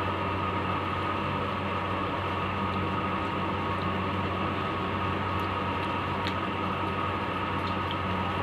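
A steady mechanical hum and hiss, like an electric fan running, with no change in level. A few faint clicks come through as fingers mix rice on a steel plate.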